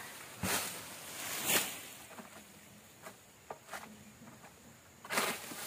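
A few short rustles and light knocks at irregular intervals, the loudest about half a second in, a second and a half in and near the end, from a harvester moving and working among oil palm fronds.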